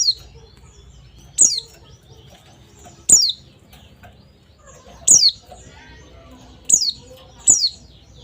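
White-eye (pleci) giving loud, sharp, high chirps that slide down in pitch, six of them spaced one to two seconds apart.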